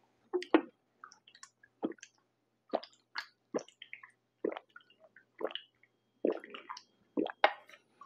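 A person gulping a drink from a can, swallowing in short separate gulps about once a second.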